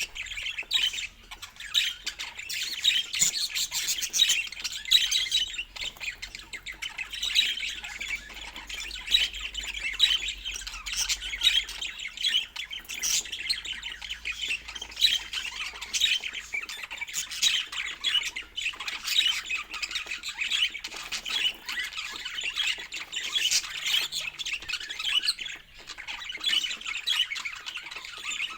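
Budgerigars chattering and warbling without pause: a dense run of quick, high chirps.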